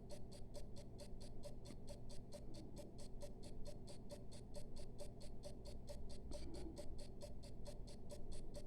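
Mechanical clock movement of a Kienzle 606C ticking steadily and evenly at about four and a half ticks a second (16,200 beats per hour), over a faint steady hum. The movement is running well and keeping good time.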